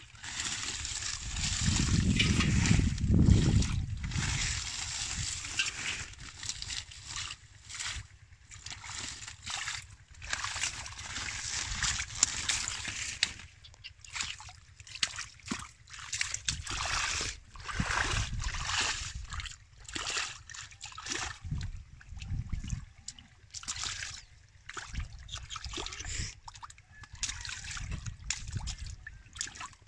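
Hands sloshing and splashing through shallow muddy water in irregular bursts while groping in the mud for catfish, loudest with a heavy low rumble about two to four seconds in.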